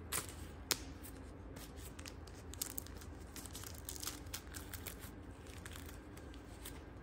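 A printed toothbrush wrapper being torn and peeled open by hand: irregular crinkling and tearing with many short crackles, and one sharper crack near the start.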